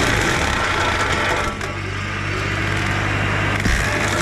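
Bobcat E35 mini excavator's diesel engine running steadily under load while its Baumalight hydraulic brush-cutter head spins and shreds small trees, a dense grinding noise over the engine hum.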